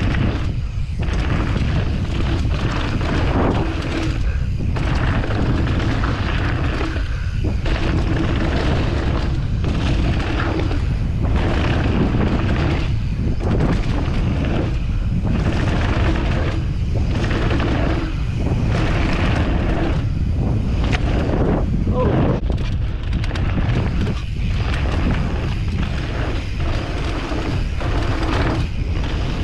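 Heavy wind buffeting on an action camera's microphone at riding speed, a steady deep rumble that thins briefly every second or two.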